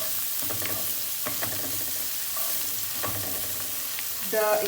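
Garlic and pepper masala sizzling in hot ghee in a kadhai while being stirred, with a few clicks and scrapes of the spatula against the pan.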